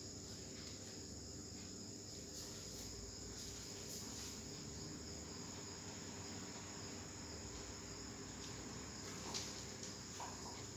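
Faint, steady high-pitched trilling of crickets, with a couple of soft ticks near the end.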